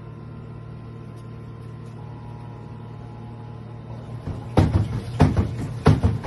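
A steady low hum, then from about four and a half seconds in, loud drum-like knocks in a regular beat, about four in under two seconds: a washing machine being struck as a percussion instrument.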